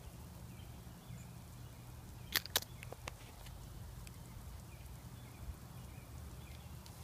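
Faint, sparse crackling ticks from a boxwood shrub, like Rice Krispies or static, which the owner puts down to boxwood leafminer larvae inside the leaves. Two louder clicks come about two and a half seconds in, over a steady low rumble.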